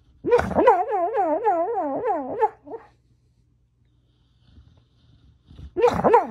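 A sleeping dog whimpers in a dream: a long, warbling whine whose pitch wobbles up and down about four times a second for some two and a half seconds. A second, shorter whine comes near the end.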